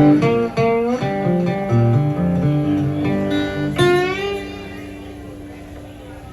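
Solo acoustic blues guitar intro: picked bass and treble notes, then a chord about four seconds in that rings out and fades away.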